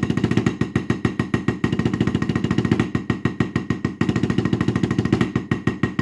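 Drumsticks playing fast, even strokes on a Bill Sanders button practice pad, a small weighted rubber pad that gives a dull, muted knock with each hit.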